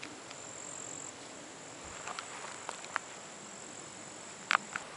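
Steady high-pitched insect trill, with a few short ticks, the sharpest two near the end, just before the trill stops.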